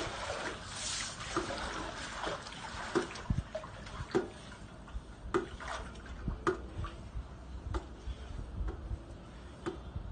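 Swimming-pool water splashing and lapping as a long-handled pool brush is pushed through it, with short drip-like plops about once a second. The splashing is stronger in the first couple of seconds, then eases.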